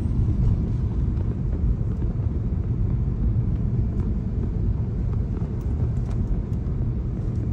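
Steady low rumble of a car on the move, heard inside the cabin: engine and tyre noise on the road.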